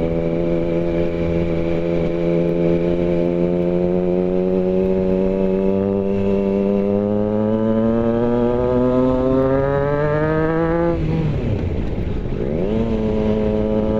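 Triumph Tiger Sport 660's inline three-cylinder engine pulling under acceleration, its note climbing slowly and steadily. About eleven seconds in the note drops sharply, then settles to a steady pitch a couple of seconds later.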